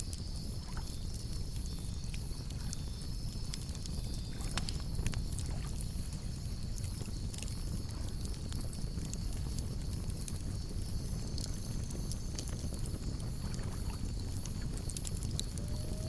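Wood campfire burning with a low steady rumble and scattered sharp crackles and pops, the sharpest about five seconds in. A steady high chirring of insects runs underneath.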